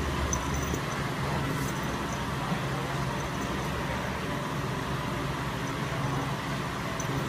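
Steady, even whooshing noise of a running electric pedestal fan, with no distinct sound from the cats.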